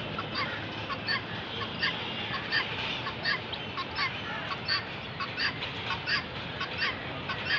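A flock of helmeted guineafowl calling: short calls repeated in a steady rhythm, about two a second.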